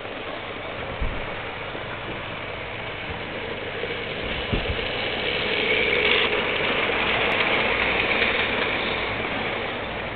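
Hornby model trains running on the track: a class 08 shunter model pulling wagons and a class 390 Pendolino model. The running noise swells for a few seconds in the middle as the shunter and its wagons pass closest, with a couple of short knocks before that.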